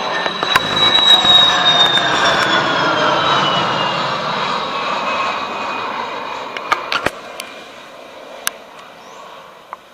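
F-16 fighter jet flying past low, its engine whine dropping steadily in pitch as it goes by and fading away over several seconds.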